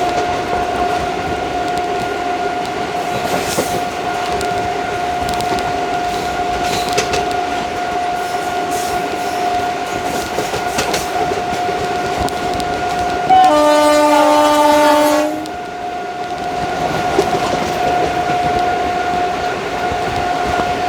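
Indian Railways ICF passenger coach running at speed, a steady whine over the running noise and occasional clicks of the wheels over rail joints. About thirteen seconds in, the WAG5 electric locomotive's air horn sounds once for about two seconds.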